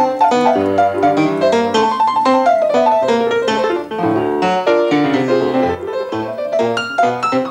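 Solo jazz piano: an acoustic piano played with quick, dense right-hand runs over a left-hand bass line.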